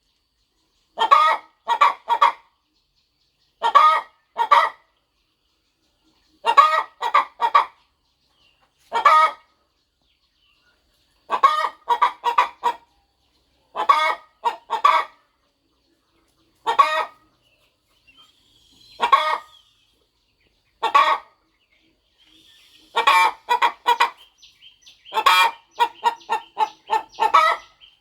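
Broody hen clucking in short groups of two to four clucks every second or two, with a quicker, louder run of clucks near the end.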